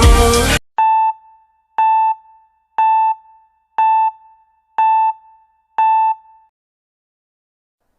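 Microwave oven beeping: six short beeps on one tone, evenly spaced about a second apart.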